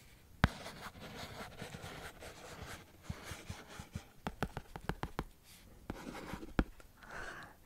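Pen scratching on paper on a clipboard close to the microphone, writing, with many small ticks; a sharp click about half a second in and another near the end.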